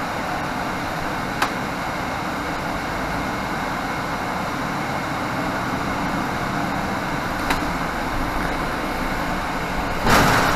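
Inside a 2018 Nova Bus LFS diesel city bus under way: the steady drone of the engine and road noise, with two light clicks. A short, loud hiss comes near the end.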